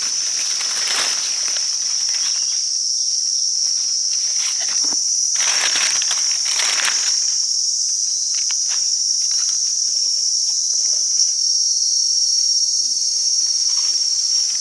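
Steady high-pitched drone of insects in the forest, with a few short bursts of rustling about a second in and again around five to seven seconds in.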